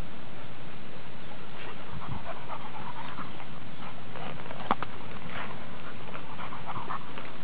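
Dog sounds from dogs moving through dry dune brush, heard as irregular short sounds over a steady background rush, with one sharp click about four and a half seconds in.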